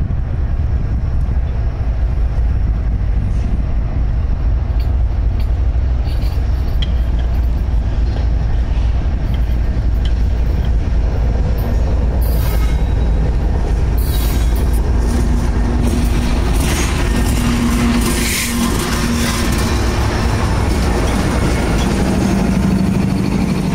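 BNSF diesel-electric freight locomotives approaching and passing close by, engines running over a steady low rumble. The wheel-and-rail noise grows from about halfway through, and steady engine tones come in near the end as the locomotives draw alongside.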